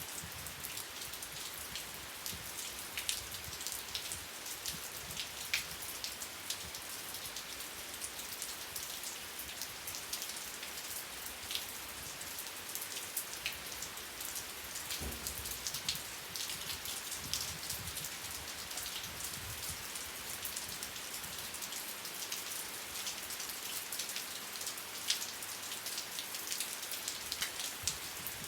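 Steady rain falling, with many individual drops ticking sharply against a surface over an even hiss.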